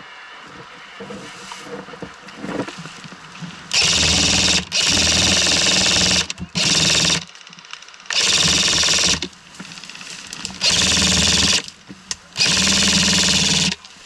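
Airsoft electric rifle (AEG) firing on full auto: six short bursts of fast mechanical clatter with brief pauses between them, starting a few seconds in. Before the first burst there is only faint rustling in brush.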